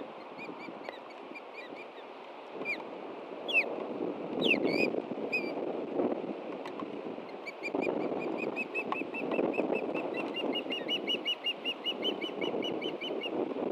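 Juvenile ospreys calling. A few thin chirps are followed by several louder down-slurred calls, then a long rapid run of chirps at about five a second that climbs a little in pitch and grows louder toward the end. Under the calls runs a steady rushing noise of wind on the microphone.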